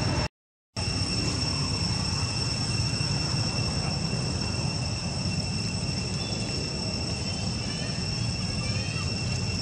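Insects droning steadily on two even high tones over a low rumbling background noise. The sound cuts out completely for about half a second just after the start, and a few faint short chirps come in over the last few seconds.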